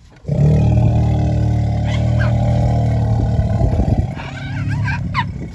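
Asian elephant giving a loud, low call that holds for about four seconds, then trails off more quietly. A few short, higher chirps sound over it near the middle and the end.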